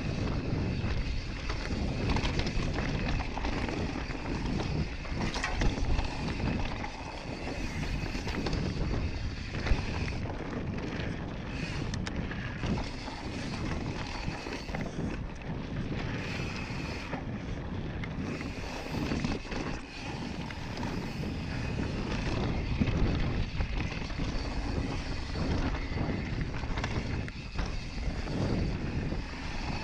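Wind buffeting the microphone and Maxxis tyres rolling fast over a dirt singletrack on a Yeti SB5 full-suspension mountain bike descending at speed, with frequent small knocks and rattles as the bike rides over bumps.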